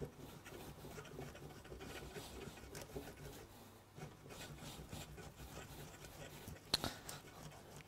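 Gruyère cheese being grated on a stainless steel box grater, a faint run of repeated rasping strokes, with one sharper knock near the end.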